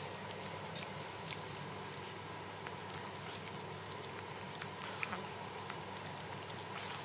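A small long-haired dog licking and grooming another dog: soft, scattered wet licking clicks, with a couple of sharper ones about five seconds in and near the end.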